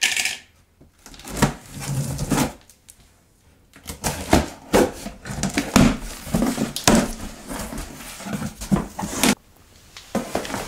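Knife slitting the packing tape on a cardboard box with a sharp rip at the start, then the cardboard flaps pulled open and handled, with irregular scraping, rustling and knocks.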